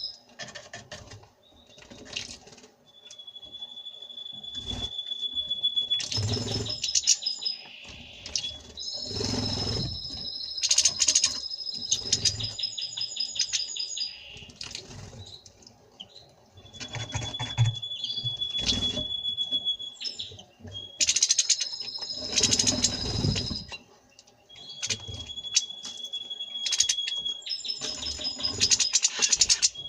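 European goldfinch and common rosefinch chirping and twittering, with repeated short bursts of wing-fluttering and splashing as they bathe. A steady high whistle, held about two seconds, comes three times.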